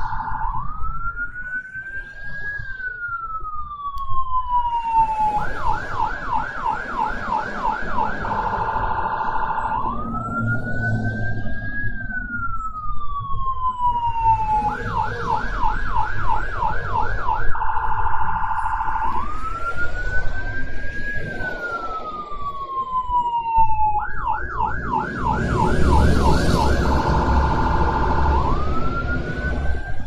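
Electronic siren cycling through a fixed pattern: a steady tone, a slow wail that rises and then falls, then a fast warbling yelp of about eight sweeps, repeating about every nine and a half seconds for three full cycles. A steady rumble of background noise runs underneath.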